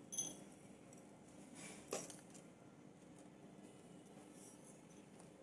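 Near silence: faint room tone with two soft clicks, one right at the start and one about two seconds in.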